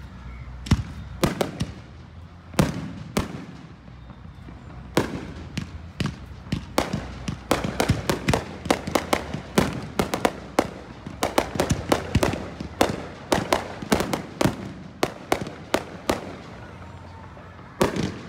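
Aerial firework shells bursting in sharp bangs. At first they come a second or so apart, then a rapid volley of many bangs follows from about six seconds in, eases briefly, and starts up again in a quick cluster near the end.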